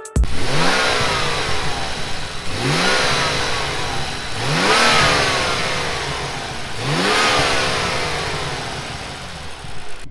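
BMW M235i engine revved four times, each blip rising quickly and falling back slowly over about two seconds.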